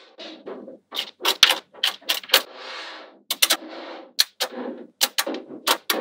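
Small metal magnetic balls clicking sharply as loops of them snap together into a flat panel, with softer rattling and sliding of the balls in between; the clicks come quickly and unevenly, several in a row at times.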